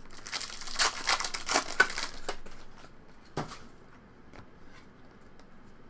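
Foil wrapper of a 2021 Topps Stadium Club Chrome baseball card pack being torn open, crinkling and crackling for about two seconds. A single tap follows, then quieter handling of the cards.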